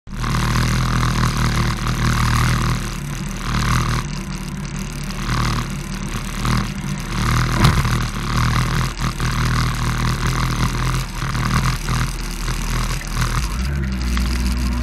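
Yamaha R1 (2003) inline-four engine idling at steady low revs, picked up through a helmet-mounted camera with a steady hiss of noise over it.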